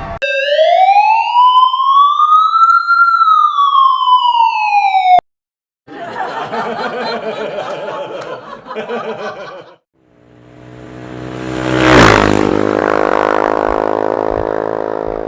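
A run of stock sound effects. First a single siren-like wail that glides up and then back down over about five seconds and cuts off abruptly. Then a short, dense, noisy effect, and finally a swelling whoosh that builds to a sharp hit about twelve seconds in and rings out as it fades.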